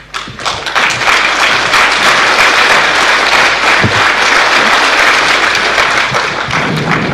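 Large audience applauding, swelling within the first second, holding steady, then dying away near the end.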